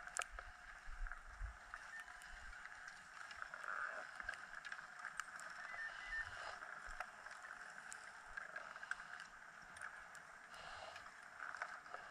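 Skis and snowboards shuffling and scraping over packed snow in a chairlift line, with scattered light clicks, over a faint steady hum.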